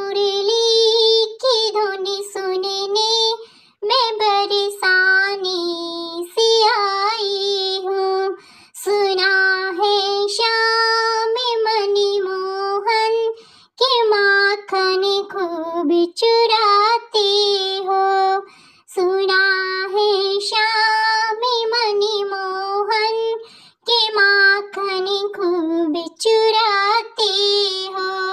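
A high-pitched voice singing a melodic song in phrases of a second or two to a few seconds, with short breaks between them.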